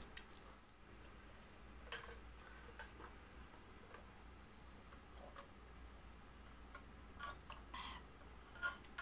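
Faint, scattered small clicks and ticks from a plastic cup and straw being handled and sipped from, a few more of them close together near the end.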